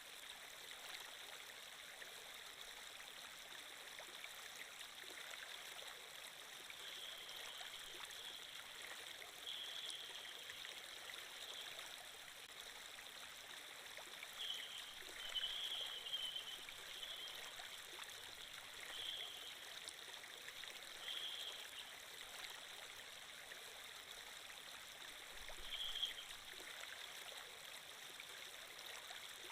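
Faint, steady rush of flowing water from a stream sound effect, with a few brief brighter swells of gurgling.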